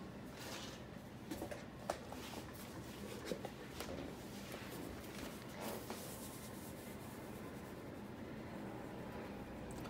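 Light kitchen handling sounds while preparing candied yams: scattered small clicks, taps and rubbing, the sharpest about two seconds in, dying away after about six seconds to a faint steady hiss.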